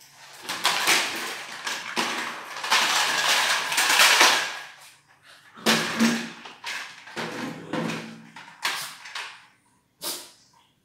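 Two small dogs play-fighting on a tiled floor: scuffling and knocking noises, loud and rough for about five seconds, then in shorter bursts, with one last brief burst near the end.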